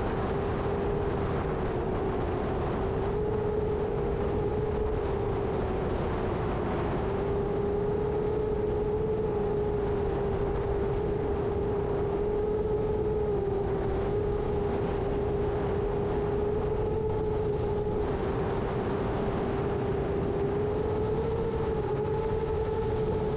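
7-inch long-range FPV quadcopter's motors and propellers whining at a steady pitch that wavers slightly up and down as the throttle shifts, over a low rumble of strong gusty wind on the microphone.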